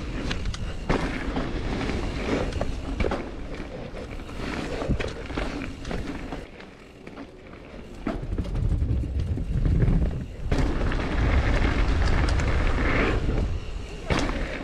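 Norco Range full-suspension mountain bike riding fast down a dirt forest trail: tyres rolling over dirt and roots, with frequent knocks and rattles from the bike over bumps. Heavy low rumble from about eight seconds in, easing off near the end.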